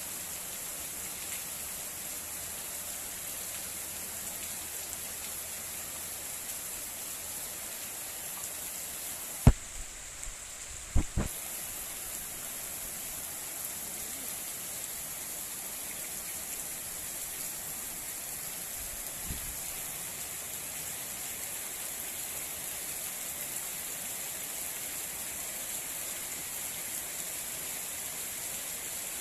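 Heavy rain falling in a steady hiss. About ten seconds in there are a few sharp knocks, the loudest sounds, and the hiss briefly drops out around them.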